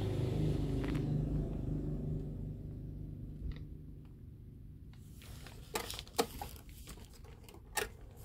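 Maspion F-23D desk fan's motor humming low and steady, then fading over a few seconds. Near the end come a few sharp clicks from its push-button speed switches being pressed.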